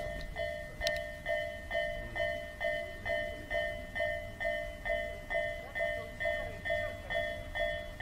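Japanese railway level-crossing warning bell ringing: an electronic ding repeating evenly, a little over twice a second, while the crossing is closed.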